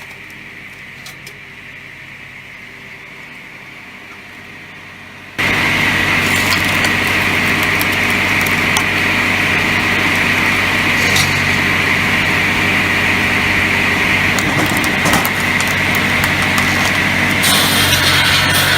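Wood-processing machinery running: a low steady hum for about five seconds, then an abrupt change to loud, steady machine noise with a high whine and an occasional click.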